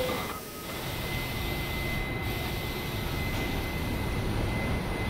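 New York City subway train running: a steady rumble with a faint, steady high whine.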